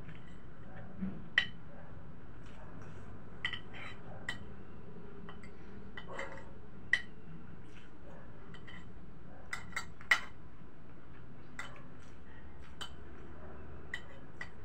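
Spoon and fork clinking and scraping against a plate during a meal: about a dozen scattered, sharp clinks, the loudest about a second in, midway and about ten seconds in, over a steady low hiss.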